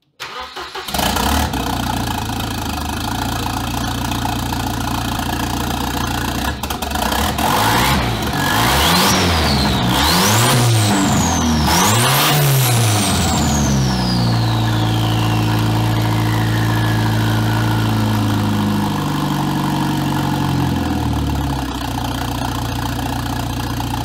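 Volvo 945's turbocharged four-cylinder engine run with no downpipe, so the exhaust dumps straight out of the turbo. It starts about half a second in and idles. Around the middle it is blipped three times, with a high turbo whistle rising on each rev and gliding down after the last, then it settles back to idle.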